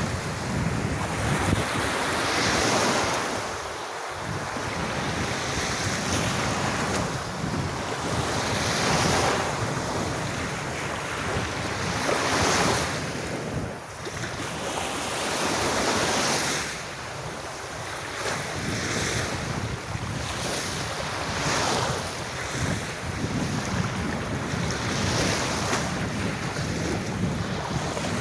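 Sea waves washing onto a beach, the surf swelling and fading every few seconds, with wind buffeting the microphone.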